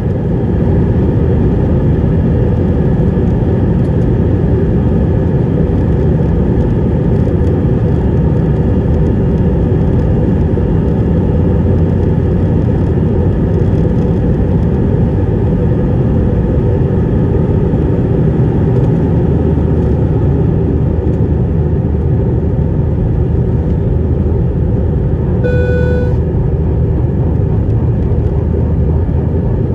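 Airbus A319's twin jet engines at takeoff thrust, heard from inside the cabin as a loud, steady rumble through the takeoff roll and initial climb. A short beep sounds once near the end.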